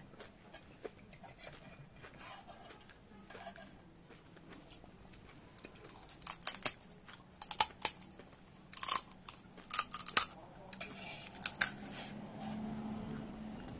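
Faint chewing, then a crisp, hollow pani puri shell cracked open with the fingers: sharp crackles in five or so quick clusters from about six seconds in.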